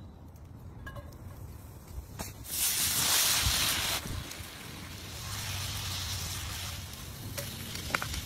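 Liquid poured into a hot cast-iron skillet of melted butter and minced garlic, hissing loudly for about a second and a half and then cutting off, followed by a softer, steady sizzle. A light clink near the end as lobster meat is tipped in from a glass bowl.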